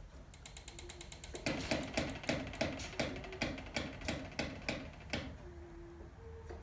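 Ratchet wrench clicking while a bolt is worked on a lawnmower: first a quick run of fine clicks, then about three to four louder, even clicks a second that stop suddenly near the end.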